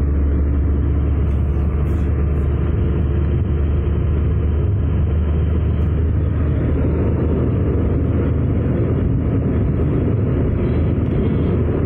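Steady low rumble inside a moving car's cabin: engine and tyres on the road while driving, with no change in pace.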